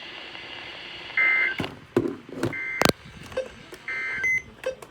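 Emergency Alert System end-of-message signal from a NOAA Weather Radio broadcast: three short two-tone data bursts about a second apart, closing the weekly test. A few sharp clicks fall between the bursts.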